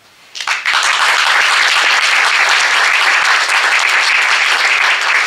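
Audience applauding, breaking out sharply about half a second in and then keeping up steadily.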